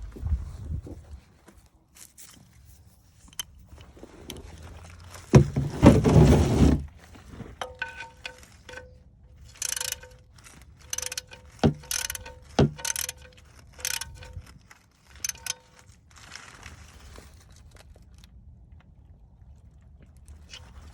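Metal hand tools clinking and clicking under the car during an oil change, several strikes leaving a short metallic ring. A louder scraping rustle comes about five seconds in.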